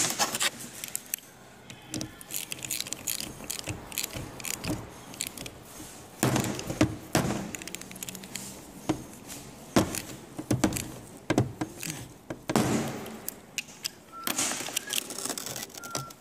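Ratchet wrench clicking in irregular bursts as it turns the housing bolts of a rebuilt steering box tight, with metallic clinks of the tools and parts.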